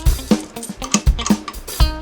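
Background music with a steady drum-kit beat, about three low drum hits a second under sharper hits and short pitched notes.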